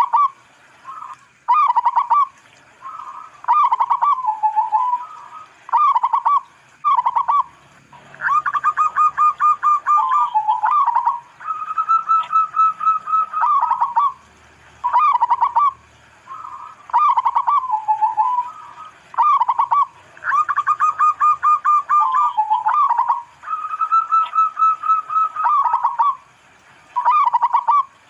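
Zebra dove (local perkutut) singing: phrases of short cooing notes around one pitch, broken by fast rattling runs of notes and long held coos. The same sequence comes round twice, about twelve seconds apart.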